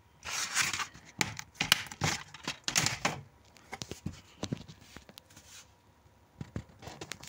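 Plastic DVD case being handled: about three seconds of rustling and scraping with several sharp clicks, then scattered fainter taps.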